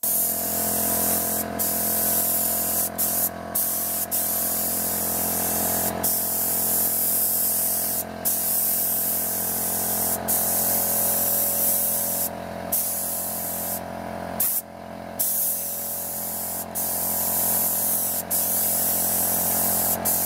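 Air spray gun with a cup hung below it hissing as it sprays paint onto a boat hull, the hiss stopping briefly every second or two. A steady motor hum runs underneath.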